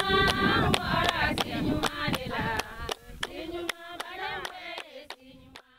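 A group of women singing together while clapping in rhythm, about four claps a second. The sound fades out over the last couple of seconds.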